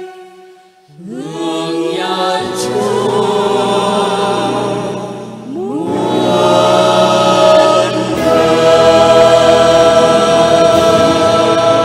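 A mixed vocal group sings a Vietnamese Catholic hymn with no clear words. Voices slide up into a chord about a second in, and a second group of voices enters the same way about five and a half seconds in. The full group then holds long notes, loudest in the second half.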